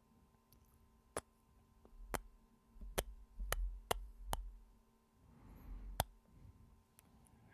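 Close-microphone kisses: about seven sharp, clicky lip smacks spread over several seconds, with low rumbling thumps under the middle ones and a soft breath just after the middle.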